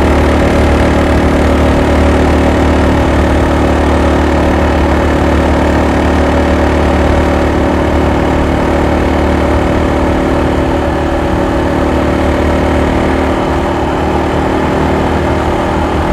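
Yamaha XT225 Serow's air-cooled single-cylinder four-stroke engine and exhaust running at a steady cruising speed while the bike is ridden on the road, heard from on board. The engine note holds an even pitch and eases off slightly near the end.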